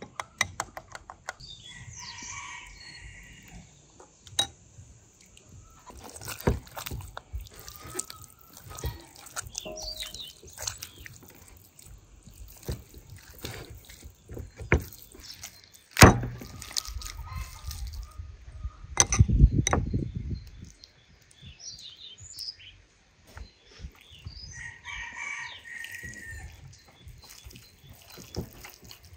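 Wet squelching and slapping of hands rubbing marinade into a raw lamb joint on a wooden board, with many small clicks. A rooster crows twice, near the start and again about 25 seconds in. A sharp knock comes a little past halfway, followed a few seconds later by a low rumble.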